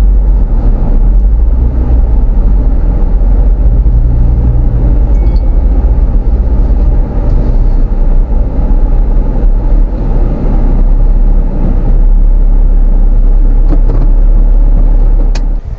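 Motor vehicle driving, a loud steady low rumble of engine and road noise that cuts off abruptly near the end.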